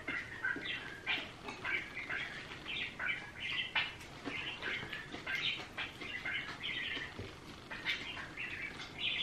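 A small bird chirping and chattering in quick, high calls, one after another throughout.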